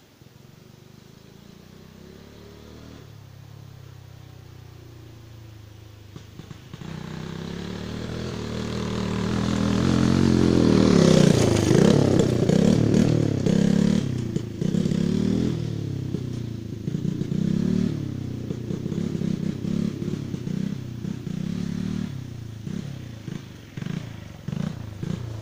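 Romet Router WS50 50 cc motorcycle engine riding off-road: faint at first, growing loud about ten seconds in as it approaches, then revving up and down over and over as the throttle is worked on the climb.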